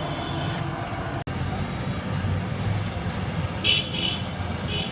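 Street traffic rumbling steadily, with a vehicle horn tooting twice near the end.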